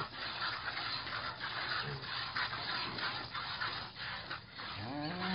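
A piglet suckling at a cow's teat: continuous, irregular sucking and scratchy noise. Near the end there is a short hum that rises and falls in pitch.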